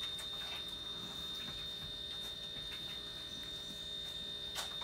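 Faint handling noises from a small glass vaccine vial and plastic syringe being shaken and worked by hand: scattered light ticks and clicks, with one slightly louder click near the end. A steady, faint high-pitched whine runs underneath.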